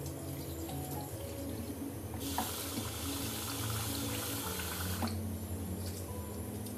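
Kitchen tap running into a steel bowl of grains being rinsed, starting about two seconds in and shut off about three seconds later. Soft background music plays underneath.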